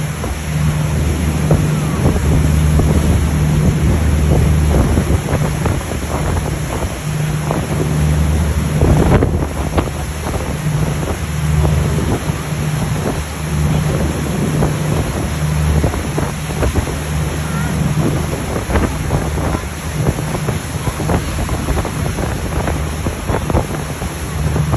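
A motor boat under way: a low engine hum that swells and fades every second or so, over the hiss of churning wake water and wind buffeting the microphone.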